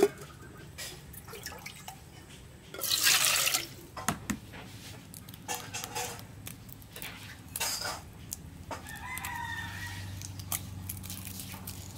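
Eggs tapped and cracked open by hand over a bowl, a few short clicks, with chickens and a rooster calling in the background. A short, loud rush of noise about three seconds in is the loudest sound.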